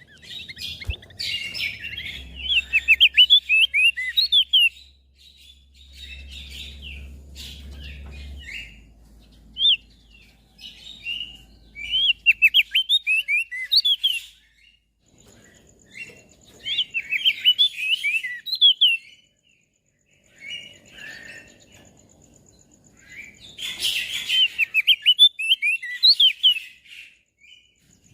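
Crested white-eye (opior jambul) singing in repeated phrases of fast, chattering chirps, with short pauses between the phrases.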